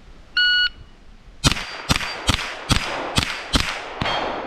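Shot timer's start beep, then about a second later a Ruger 10/22 .22 LR semi-automatic rifle firing a quick string of seven shots, roughly two a second.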